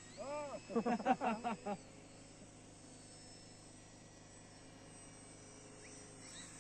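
Faint steady whine of electric RC model aircraft motors. About a quarter of a second in comes a brief, louder run of short rising-and-falling pitched calls, lasting about a second and a half.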